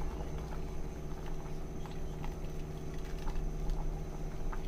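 Pot of chicken soup simmering on the stove, with scattered small irregular pops and taps as a steel ladle stirs it, over a steady low hum.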